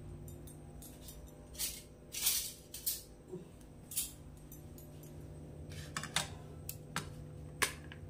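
A few short, irregular rattles and clatters, like dishes and utensils being handled on a kitchen counter, over a faint steady hum.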